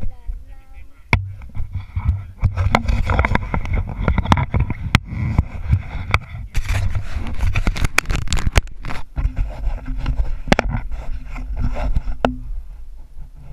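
Handling noise from a helmet-mounted GoPro as a boy climbs a tree on a rope: rubbing, scraping and many sharp knocks over a low rumble, which mostly die down about twelve seconds in.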